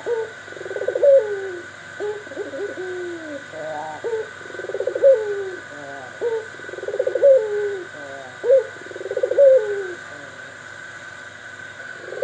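Pelung bird cooing: about five calls, roughly every two seconds, each a rolling, trilled coo that falls away at the end.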